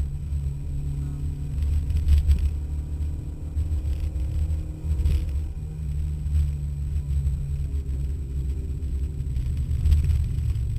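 Suzuki Swift GTi rally car's four-cylinder engine heard from inside the cabin, a heavy low rumble whose note climbs twice as it pulls under throttle, with a couple of short knocks.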